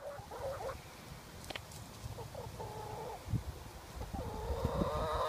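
Chickens clucking and calling: a few short clucks, then a drawn-out call about two seconds in, and a longer call that builds louder near the end.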